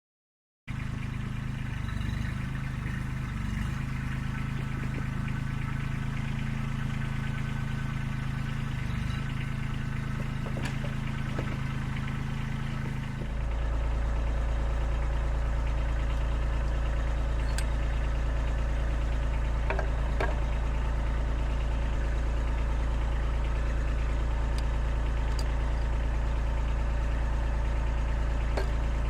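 Kubota B2301 compact tractor's three-cylinder diesel engine idling steadily. About halfway through the hum turns deeper and a little louder, then holds steady.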